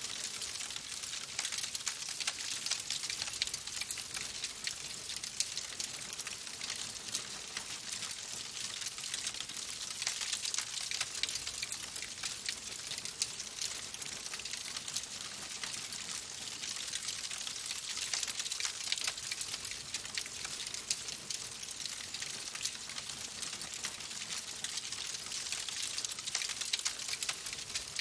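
Wood fire crackling in a fireplace: a dense, steady run of small pops and snaps over a soft hiss.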